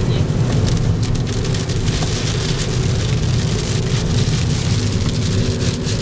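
Inside a car driving fast on a wet highway in rain: a steady engine and tyre drone, with rain and spray hissing against the windshield.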